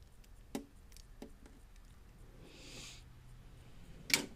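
Small metal parts being handled: a few light clicks, a brief rustle, then a sharper clink near the end.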